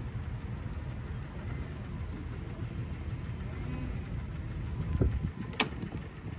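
Car engine running with a steady low rumble, swelling briefly about five seconds in, and a sharp click just after.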